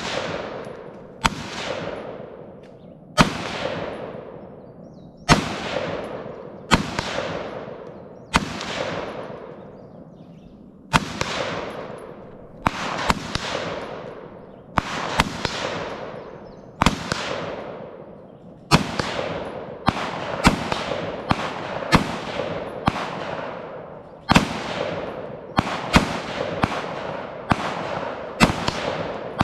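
Rifle fired shot by shot at an outdoor range, about two dozen single shots, each cracking out and fading in a long echo. The shots come a second or two apart at first and follow faster from about halfway through.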